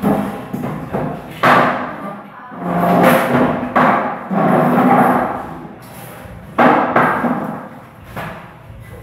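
Five loud bangs, each trailing into about a second of rattling: a metal ceiling rack shaken and knocked as a man hangs from it and pulls on it.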